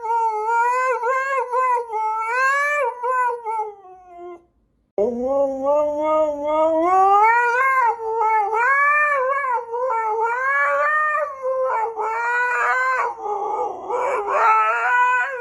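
A pet howling in long, wavering, pitched cries. The sound breaks off about four seconds in, then starts again lower and rises into another long, wavering howl.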